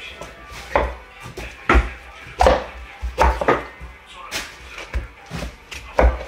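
Large knife chopping a whole raw chicken into pieces on a plastic cutting board: about nine sharp, irregularly spaced chops.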